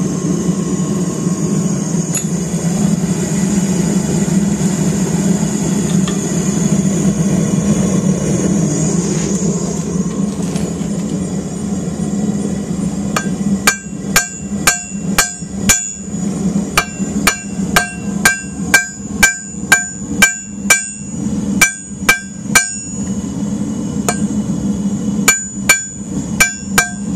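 The forge runs with a steady low drone. About halfway through, a hammer starts striking hot mild steel round stock on an anvil in quick runs of ringing blows, about three a second, with a short pause near the end.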